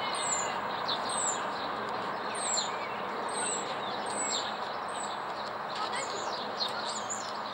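Steady rumble of a Boeing 777's twin jet engines passing overhead on final approach with its landing gear down. Small birds chirp over it, with short high calls that sweep downward, about one a second.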